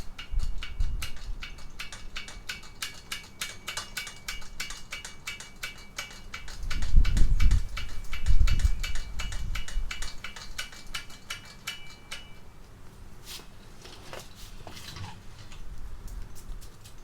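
Rapid metallic clicking with a faint ringing under it, broken by two heavier low thumps about seven and eight and a half seconds in, then a few scattered clinks.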